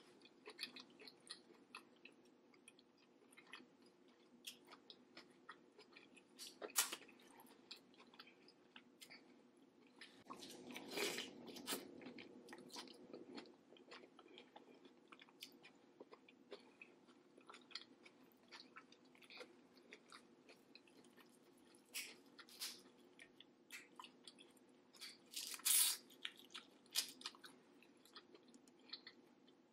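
Close-miked chewing of saucy seafood-boil food: soft wet smacking and mouth clicks throughout, with a few louder bites. The longest lasts a couple of seconds about a third of the way in, and there is a sharp one near the end.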